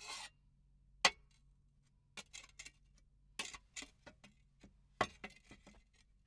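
Faoda (digging hoe) foley: a short scrape at the start, one sharp knock about a second in, then three clusters of light clicks and knocks.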